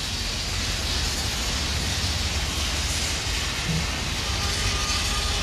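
Steady city street traffic noise: cars and other vehicles passing on a busy road, an even rumble and hiss with no single event standing out.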